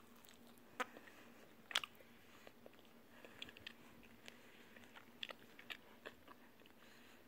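Faint chewing with scattered small crunches and mouth clicks, the two clearest about one and two seconds in, as someone eats fried food.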